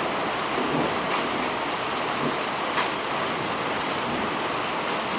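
Heavy rain falling steadily, a dense even hiss with a few sharper drop splashes.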